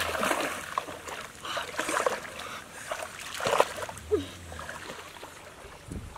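Water splashing and sloshing in irregular bursts.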